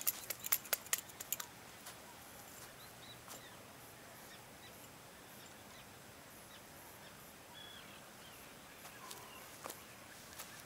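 A quick run of about eight sharp clicks and taps in the first second and a half, then a quiet outdoor background with a few faint bird chirps and one more click near the end.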